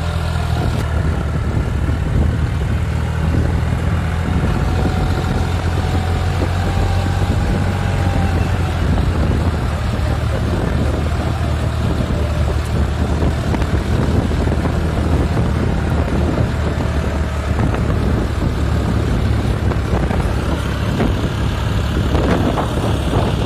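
John Deere 5036 D tractor's three-cylinder diesel engine running steadily under heavy load while pulling a trolley heaped with soil.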